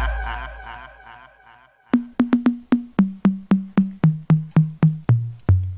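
Music from a dance-music DJ mix: the previous track dies away over about a second and a half with a fading low bass note, then after a brief gap a drum-machine tom fill starts, about five hits a second, stepping down in pitch every few hits, as the run-in to the next track.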